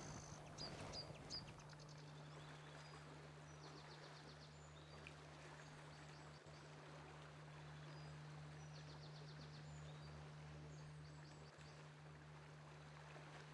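Near silence: quiet riverside ambience with a steady low hum and a few faint bird chirps and short trills.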